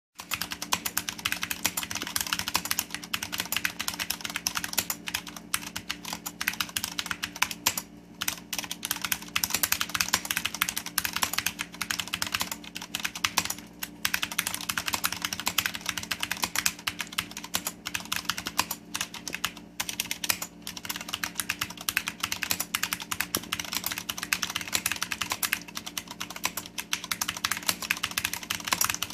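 Continuous fast typing on a Leopold FC750R tenkeyless mechanical keyboard with linear Cherry MX Red switches and PPS dye-sublimated keycaps, a dense stream of key clacks with a few short pauses. A steady low hum sits underneath.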